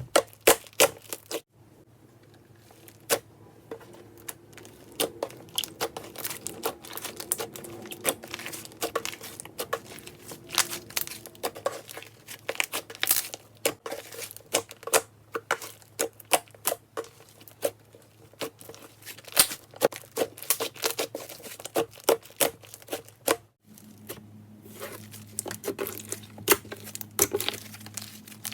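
Clay slime being squeezed, stretched and pressed by hand, making a dense, irregular run of sharp clicks and crackles from air popping in the slime. A faint steady hum runs underneath.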